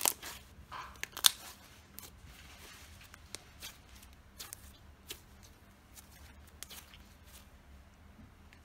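Hands squeezing and stretching a thick pink sand slime, making sticky clicks and small pops. The loudest cluster comes in the first second and a half, then single clicks every half second or so.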